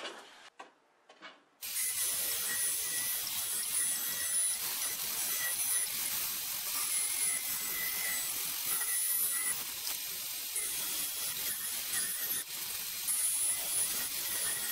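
A few light tape-measure clicks, then band saw noise starts abruptly about one and a half seconds in: a steady hiss with a thin high whine as a hardwood board is fed through the blade, ripping it to width.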